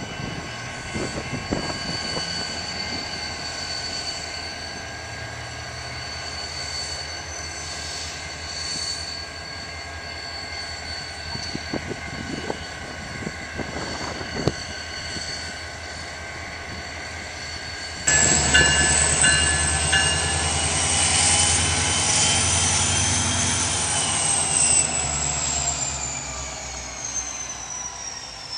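BNSF diesel locomotive running as it moves past, its engine drone joined by a few clanks. About two-thirds of the way through the engine suddenly gets louder and a high whine comes in, rising slightly and then slowly falling away.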